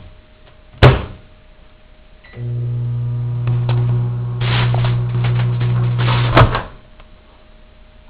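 Microwave oven door shut with a loud clunk, then the microwave hums steadily for about four seconds. Over the hum, a CD inside crackles and snaps as it sparks. A loud click near the end, and the hum stops.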